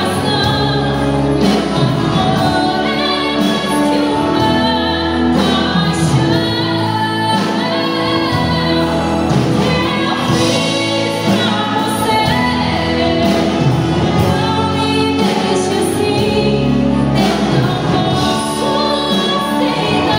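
A woman singing a sertanejo love song live into a microphone, amplified through the stage sound system and backed by a live band.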